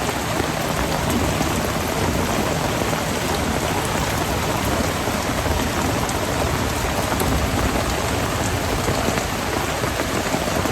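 Thunderstorm rain falling steadily and hard: a dense, even hiss full of tiny drop ticks.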